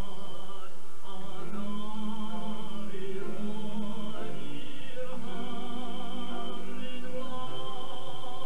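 Choir singing a slow song in harmony, the voices holding long notes with vibrato and moving to a new chord every second or two.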